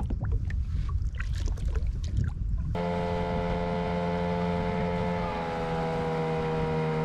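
A boat motor switches on abruptly about three seconds in and runs with a steady hum whose pitch drops slightly midway. Before it there is wind and rumbling handling noise with a few knocks.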